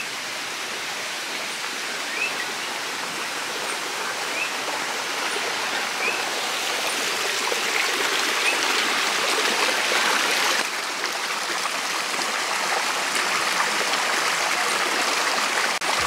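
Mountain stream rushing and splashing over rocks in a small cascade, a steady water noise that grows gradually louder over the first half.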